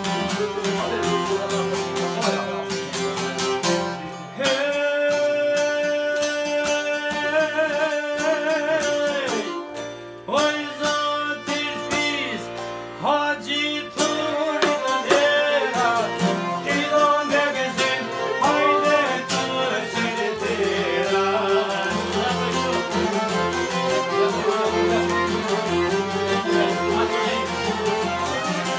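Albanian folk song played live: a man's voice sings long, wavering held notes over plucked lutes and an accordion.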